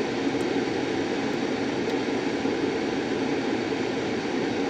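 Car air-conditioning blower running steadily inside the cabin: an even rush of air noise.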